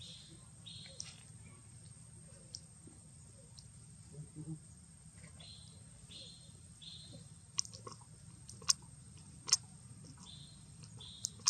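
Baby macaque squeaking: short high-pitched squeaks in runs of two or three, at the start, around the middle and near the end. A few sharp clicks in the second half are the loudest sounds.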